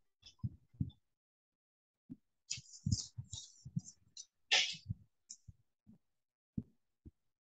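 Marker pen writing on a whiteboard: a scatter of short scratchy strokes of the felt tip, bunched in the middle, with soft low thuds in between.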